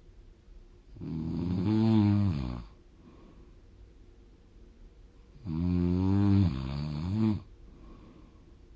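Snoring: two long, loud snores about four and a half seconds apart, each a deep pitched drone that wavers in pitch near its end.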